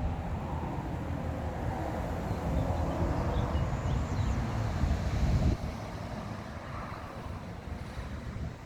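Low outdoor rumbling noise that builds for a few seconds and drops off suddenly about five and a half seconds in.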